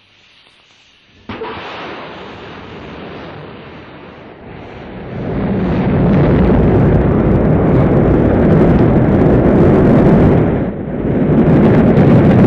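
Rocket launch: a sudden loud start about a second in, then a deep rumble of rocket engines and boosters that builds from about five seconds in and stays loud through liftoff, dipping briefly near the end.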